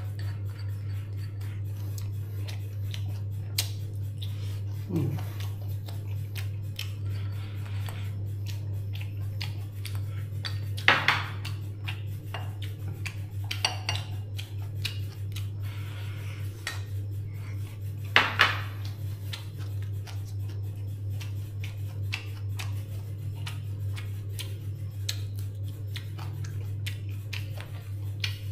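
Dishes and utensils clinking and clattering in a run of small clicks, with two louder ringing clinks about eleven and eighteen seconds in, over a steady low hum.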